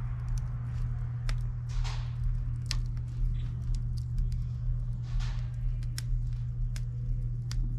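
Oak wood fire in an offset smoker's open firebox crackling as a fresh split starts to catch on hot coals: scattered sharp pops and crackles over a steady low hum.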